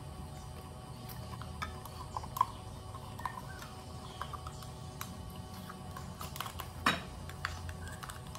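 A metal spoon scraping and clinking against a plastic hand citrus juicer while orange pulp is worked out of it: scattered light clicks and taps, the sharpest about two and a half seconds in and again near seven seconds.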